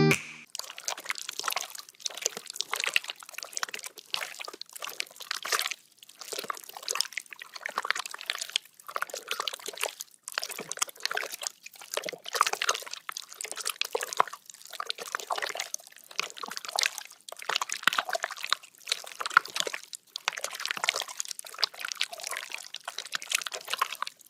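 Slime being squeezed and kneaded by hand: wet, sticky crackling and popping clicks coming in irregular bunches with short pauses between them.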